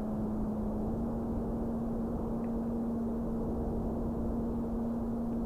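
Steady hum of a Carbon Cub S2 RC plane's electric motor and propeller in flight, holding one pitch, over a low rumble of wind on the microphone.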